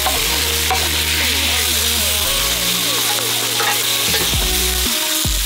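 Shrimp and seafood frying in a hot cast-iron skillet over a wood fire: a steady sizzling hiss. Background music with a bass line plays along.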